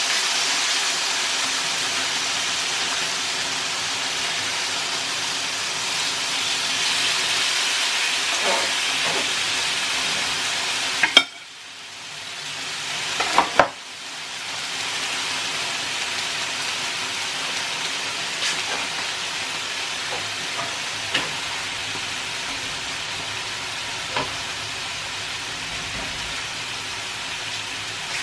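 Steak sizzling on a hot electric grill plate, a steady frying hiss. About eleven seconds in the sizzle briefly drops away, with a few sharp metal clicks before it comes back.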